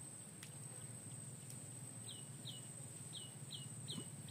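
A bird calling in a series of short chirps that fall in pitch, about two a second, starting about halfway in. Under it is a steady high thin whine and low outdoor background noise.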